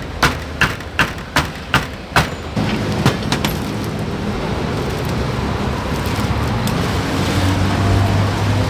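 A run of evenly spaced sharp knocks, about two or three a second, for the first two seconds. Then steady road traffic noise, with a vehicle engine humming louder near the end.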